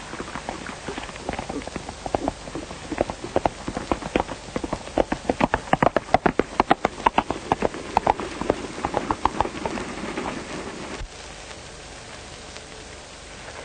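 Horse hoofbeats, growing louder to a peak about six seconds in and fading away after about ten seconds, over the steady hiss of an old film soundtrack.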